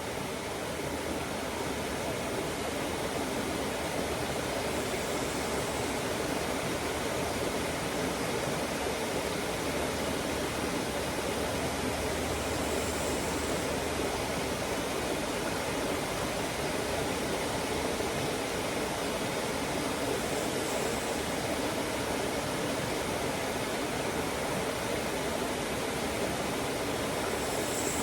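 Steady rush of flowing water, a stream running over rocks, an even noise with no pauses.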